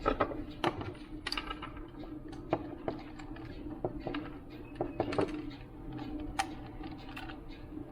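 Recorded fire crackle played through a small speaker of a sound-recording module: irregular sharp crackles and pops over a steady low hum.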